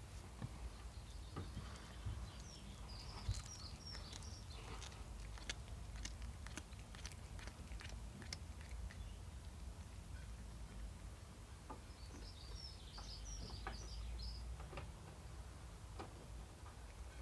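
Two short spells of high bird chirping, one a few seconds in and one near the end, over scattered small clicks and a low steady background rumble.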